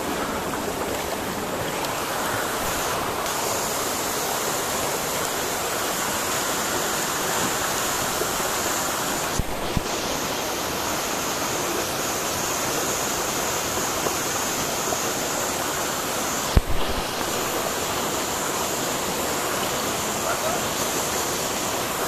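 Waterfall pouring down a rock wall and splashing into a shallow pool, a steady close rush of water, with two brief thumps partway through.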